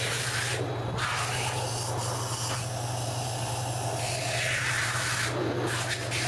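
Cardboard rasping and swishing in several stretches as a shipping box is slit open with a box cutter and its flaps are pulled back, over a steady low hum.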